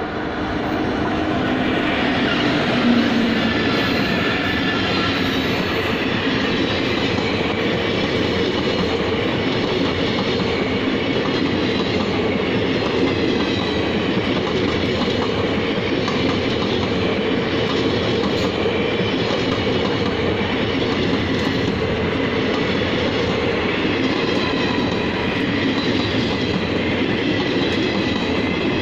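Passenger express hauled by twin locomotives, an electric and a diesel, passing close by. The noise swells over the first couple of seconds as the locomotives go past, then the coaches keep rolling by with a steady clatter of wheels on the rails.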